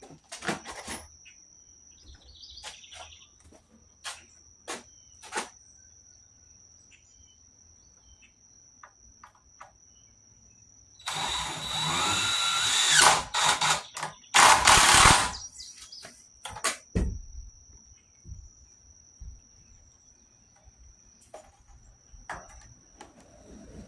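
A power saw cutting wood in two short passes, its motor whine rising as it spins up, with scattered knocks and clicks between.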